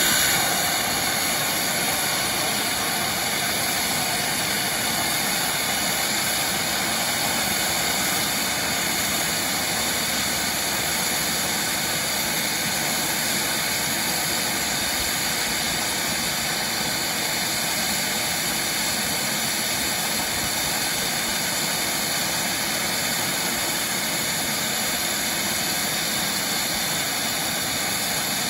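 Ridable-scale live-steam locomotive blowing steam hard from a valve low on its boiler, a steady, loud hiss that holds unbroken throughout, the sound of a boiler blowdown.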